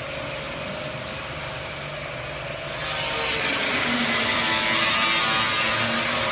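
Rotary biscuit-moulding machine running: a steady mechanical hum with a constant tone, joined about three seconds in by a louder hissing rush.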